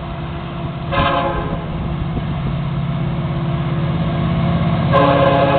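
Florida East Coast Railway freight locomotive horn sounding for a grade crossing: a short blast about a second in, then a long blast starting near the end. Under it runs the steady drone of the approaching diesel locomotives, growing louder.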